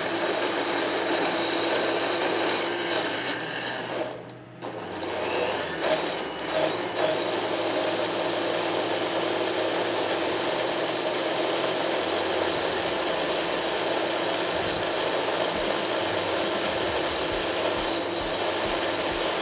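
Electric blender running, pureeing frozen peas, mint leaves, butter and stock into a smooth green sauce. The motor stops briefly about four seconds in, starts again, and cuts off at the end.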